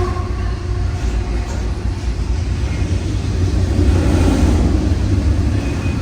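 Freight cars of a long CN intermodal train rolling past, a steady loud low rumble with rail noise.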